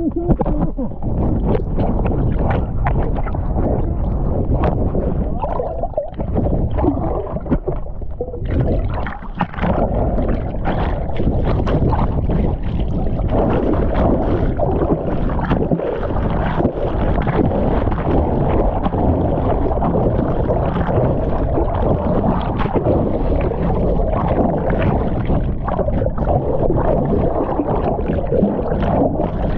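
Water sloshing and splashing around a kayak, heard as a loud, steady rush with heavy low rumble on an action camera's microphone. It turns brighter and hissier about eight seconds in.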